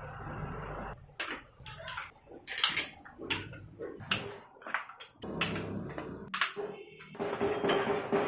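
Metal tools and engine parts clinking and knocking against each other in irregular strokes, with a couple of longer scraping stretches in the second half.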